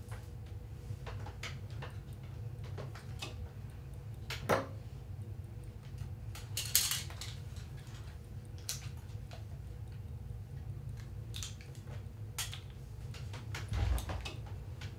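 Light, scattered clicks and clinks of small kitchen utensils and containers as edible glitter is sprinkled over cookies, with a soft thump near the end, over a steady low hum.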